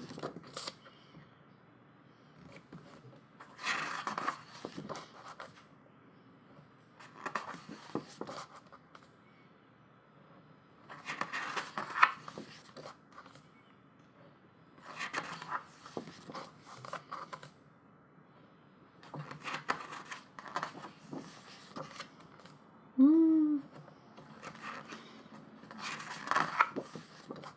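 Pages of a thick photobook being turned by hand, a paper rustle and swish every few seconds. About two-thirds of the way through, a brief hummed vocal sound is the loudest moment.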